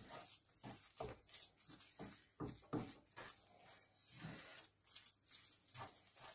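Wooden spoon stirring thick risotto in a frying pan: faint, irregular soft scraping and squelching strokes, about two a second.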